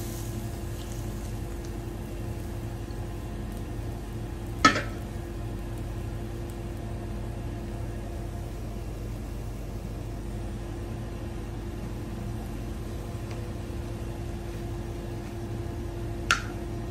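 Flatbread cooking on a hot griddle, a quiet steady sizzle over a constant hum. Two sharp clicks, one about five seconds in and one near the end, the second as a metal spatula is worked under the bread's edge.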